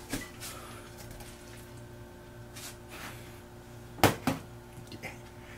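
Chopsticks and a small porcelain dish clinking lightly on a metal worktop while dressed spinach is heaped into the dish. Two sharper knocks come about four seconds in, over a steady low hum.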